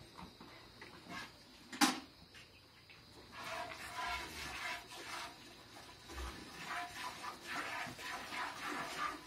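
Cow being milked by hand into a metal pail: rhythmic squirts of milk hissing into the bucket begin about three seconds in. A sharp knock sounds about two seconds in.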